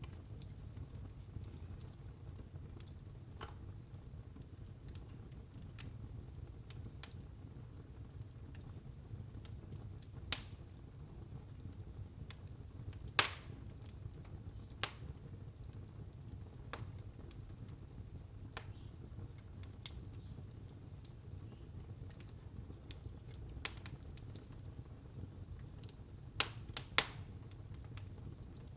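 Wood burning in a fireplace, crackling: scattered sharp pops and snaps over a low, steady rumble. The loudest pops come about halfway through and again near the end.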